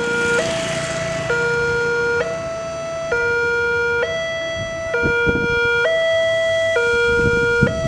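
Indonesian railway level-crossing warning alarm sounding: an electronic two-tone signal alternating between a lower and a higher pitch, each held just under a second, with the barrier arms down, warning that a train is approaching.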